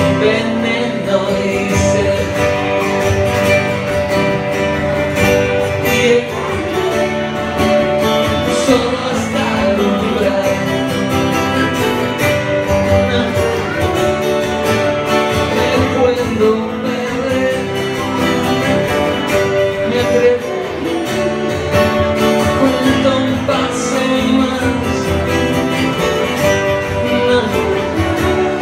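Spanish pop-rock song, an instrumental passage carried by guitars at a steady, full level.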